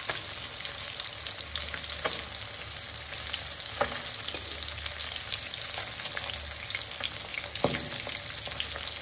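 Masala-coated rohu fish pieces sizzling and crackling steadily in hot oil in a wok. A steel spatula scrapes against the pan a few times as the pieces are turned to fry the second side.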